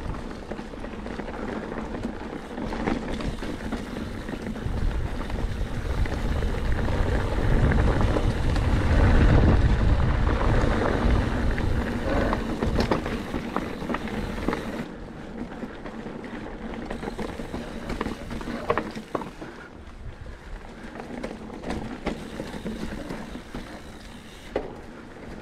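Mountain bike rolling over a rocky trail, with tyre noise, rattles and knocks from the bike, and wind rumbling on the microphone. The rumble swells from about five seconds in to about fourteen seconds, then eases.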